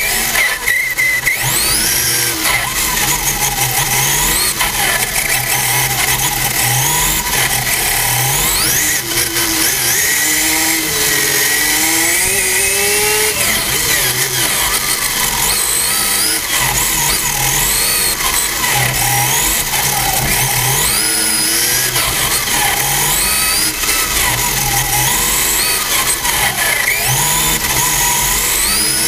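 Radio-controlled car's motor, heard from a camera mounted on the car, repeatedly rising and falling in pitch with the throttle over a steady loud rushing noise.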